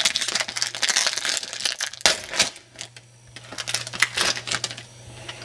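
2007 Threads football trading cards being handled and flipped through one after another: quick rustling and sliding with sharp little clicks as the cards snap against each other, easing off briefly about three seconds in.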